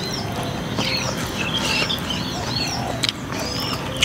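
Small birds chirping over and over in short, quick calls, over a steady low background hum, with a couple of sharp clicks about three seconds in and near the end.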